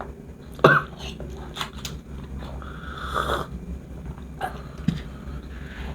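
A person coughs once, sharply, about two-thirds of a second in, irritated by harsh kretek clove-cigarette smoke. A softer, drawn-out sound follows around three seconds in, and there is a small knock near five seconds.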